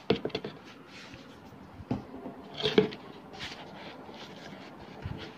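Handling noises: a few short clicks and knocks with light rubbing as hands move small computer parts, including a desktop RAM stick, about on a table. The loudest knock comes a little before halfway through.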